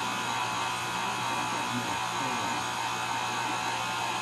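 Motor of an electric pasta machine running steadily with a constant hum as dough is rolled through it.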